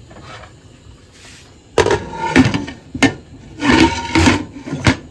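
Glass pot lid with a metal rim clattering and knocking against the rim of a stainless steel cooking pot as it is set on. About six sharp knocks and scrapes with a slight metallic ring, starting a little under two seconds in.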